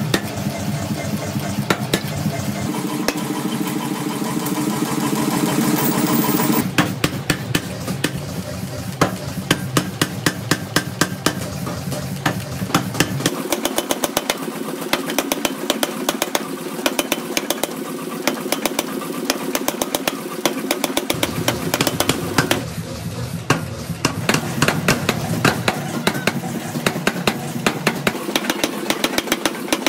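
Power forging hammer striking a red-hot steel billet in quick, even blows, several a second, over the hammer's steady running; the billet is being forged into a heavy-duty truck axle spindle blank.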